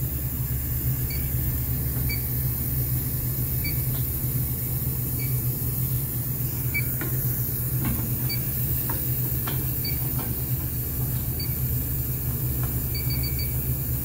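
Steady low hum of a walk-in cooler's refrigeration equipment, with faint short high beeps from an Inficon D-Tek Stratus refrigerant leak detector about every second and a half. Near the end the beeps come in a quick run as the probe nears a leak and picks up a strong reading.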